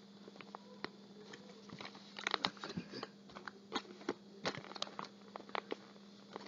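Sheet of paper crinkling and rustling in short, scattered crackles as it is folded and its creases pressed by hand, with a denser burst of crackling a little after two seconds in.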